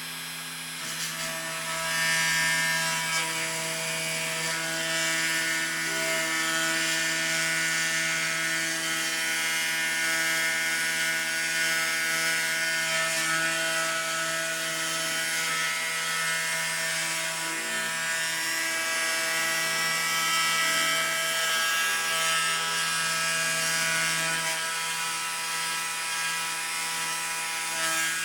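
Homemade CNC engraving machine for milling circuit boards running: a steady whine from the spindle motor, with stepper motors humming at shifting pitches as the axes move. It gets louder about two seconds in.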